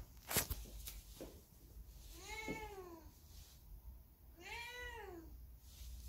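A domestic cat meows twice, two separate calls that each rise and fall in pitch, about two seconds apart. A sharp click comes shortly before the first meow.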